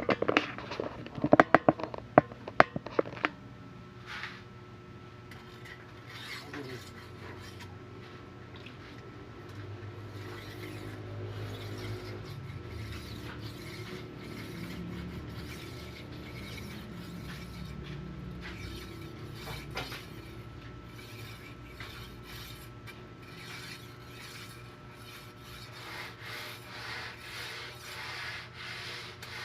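A thickness planer blade being ground on a bench grinder. A few sharp metal knocks come in the first seconds, then the grinder motor hums steadily while the blade scrapes against the wheel, in rhythmic strokes near the end.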